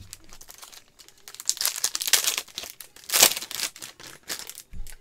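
Foil wrapper of a trading-card pack crinkling and tearing as gloved hands rip it open, a run of loud crinkles from about a second in, loudest about three seconds in.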